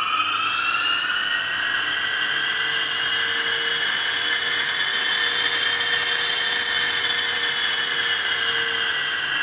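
Loud, eerie whistling of air rushing through the underground station's sealed waiting room as a high-speed train's air pressure surges through the tunnel: several high tones at once, rising slightly at first and then holding steady, with a lower tone joining a couple of seconds in.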